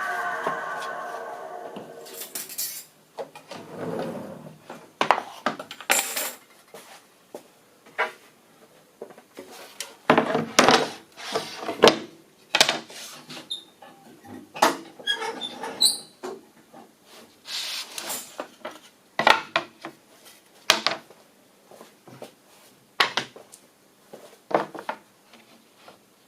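A power saw winding down, its tone fading over the first couple of seconds. Then a string of irregular knocks, clacks and squeaks as timber and tools are handled on the bench.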